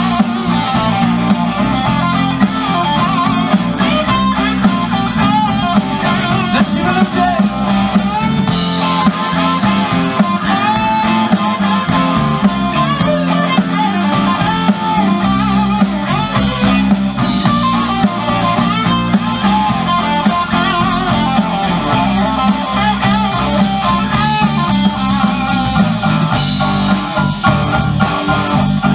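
Live blues band playing loud and steady: electric guitar over a drum kit.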